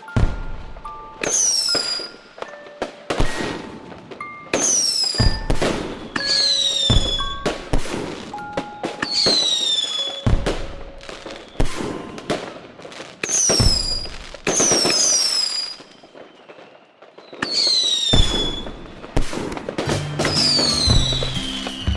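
Fireworks going off one after another, each a short whistle falling in pitch with a bang, roughly every second and a half, over music with short held notes; low bass notes come in near the end.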